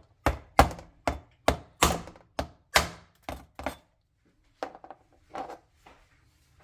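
Crab claws being chopped with a blade: about nine hard chops in quick succession, then a short pause and a few softer chops.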